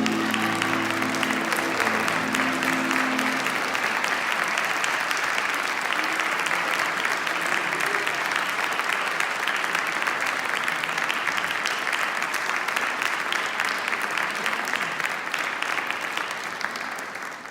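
Congregation applauding steadily, with the last held notes of the music fading out over the first few seconds.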